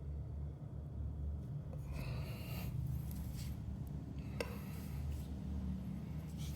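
Soft rubbing and handling sounds with one sharp click about four and a half seconds in, over a low steady hum.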